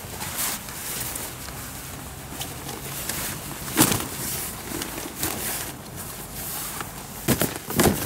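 Umbrella-type pop-up hunting blind being unfolded: its camouflage fabric rustles and swishes, with a sharp snap about four seconds in and several more near the end as the frame springs open.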